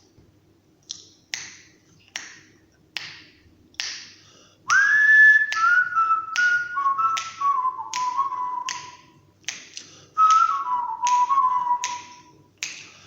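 A man whistling a tune in phrases that step down in pitch, heard twice, over finger snaps keeping time a little more than once a second. The snaps play alone for the first few seconds before the whistling comes in.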